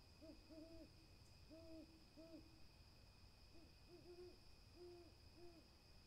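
Burrowing owl hooting: about nine quiet, low, short cooing notes in two bouts, some paired like "coo-cooo".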